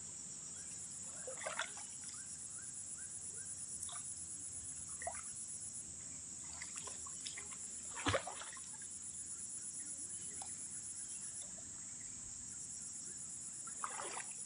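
A steady, high, pulsing insect chorus runs throughout, with a few splashes of water as men wade and work a fishing net in a pond. The loudest splash comes about eight seconds in, with smaller ones shortly after the start and near the end.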